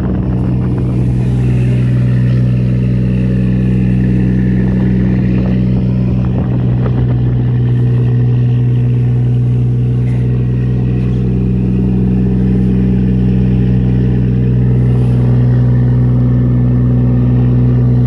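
A fishing boat's engine running steadily under way, a constant low drone, with water rushing and splashing along the hull.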